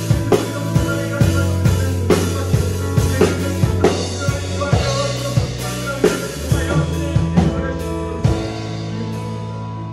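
Acoustic drum kit played along with a music backing track: bass drum, snare and cymbal strokes in a steady beat. The drumming stops about eight seconds in, and the backing track's chords ring on and fade as the song ends.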